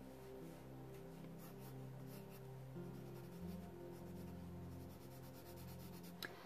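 Pencil strokes scratching on sketchbook paper, short and repeated, as fur is sketched in. Soft background music of held low notes plays underneath.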